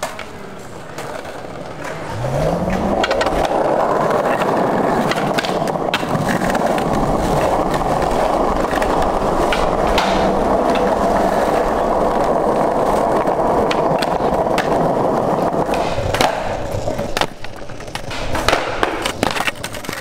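Skateboard wheels rolling over a smooth tiled plaza: a steady rolling rumble that sets in about two seconds in and fades near the end, with scattered clacks of the board and the rider's feet. Near the end come several sharp clacks of the board on the ground.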